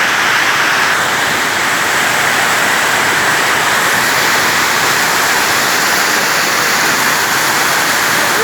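Heavy rain falling in a steady downpour, a dense, even hiss that doesn't let up.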